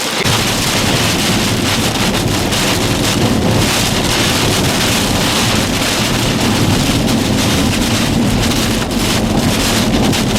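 Strong thunderstorm wind blowing hard across the microphone, a loud, steady rumble with rain hissing over it. It sets in abruptly at the start.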